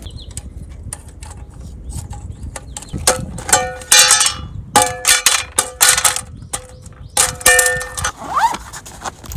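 Metal camping cookware knocking and clanking together as it is handled and stacked. There is a run of sharp knocks from about three seconds in, each leaving a short metallic ring.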